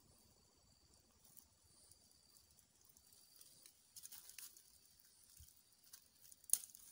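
Near silence: faint outdoor insect drone high in pitch, with a few soft crackles and one sharper click near the end.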